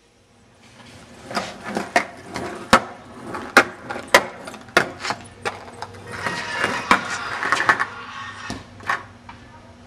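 Skateboard on concrete: wheels rolling, with about a dozen irregular sharp clacks of the board striking the ground, starting about a second in.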